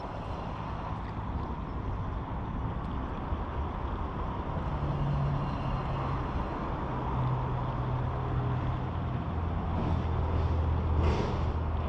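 Road traffic on a highway: a steady rumble of car and truck engines that swells as heavier vehicles pass, loudest near the end, with a short hiss about eleven seconds in.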